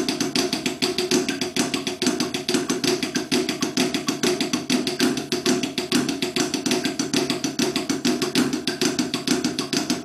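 Drumsticks playing the Swiss Army triplet rudiment (right-right-left groups with flams, switching to left-left-right) on a rubber practice pad sitting on a snare drum, at 130 beats a minute: a fast, even stream of strokes.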